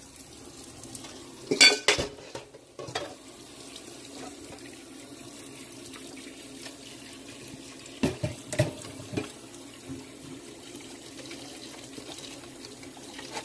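Hot water running from a kitchen tap into a sink as dishes are put in to soak. Dishes clatter against each other and the sink, loudest about two seconds in, with a few more knocks around eight to nine seconds.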